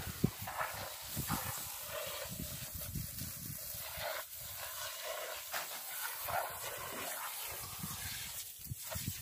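Water hissing from a hose as it sprays onto a skinned, hanging steer carcass, washing out the neck cavity. The spray sound shifts and splatters as the stream plays over the meat.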